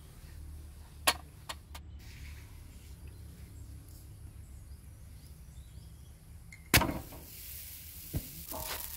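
Sharp clicks and knocks from thin flatbread dough being rolled out and handled on a wooden board, over a low steady rumble. A louder knock followed by a brief rustling swish comes near the end.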